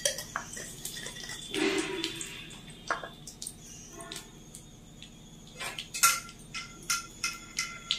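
Cumin seeds and a bay leaf crackling in hot mustard oil in a steel kadhai: scattered small pops as the seeds splutter during tempering, with a brief louder sizzling hiss about two seconds in.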